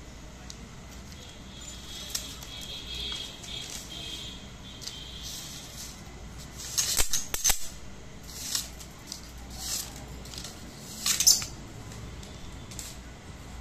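Paper slip scraping across a brass pyramid as rice grains are tipped onto it, with the grains clicking and rattling on the metal. The sound comes in short scrapes and clicks, loudest in two brief clusters about seven and eleven seconds in.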